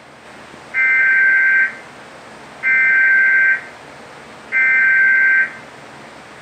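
Emergency Alert System digital header tones: three loud bursts of warbling data tones, each about a second long with about a second between them. This is the coded header that opens an EAS alert, sent here for a national test.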